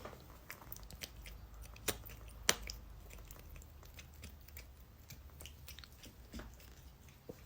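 Faint, scattered crunching clicks, like chewing, over a low steady hum; two sharper clicks about two and two and a half seconds in.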